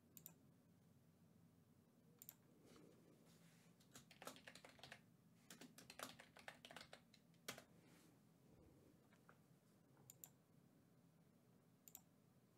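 Faint computer keyboard typing and mouse clicks, in scattered short clusters that are busiest from about four to seven seconds in, with near silence between.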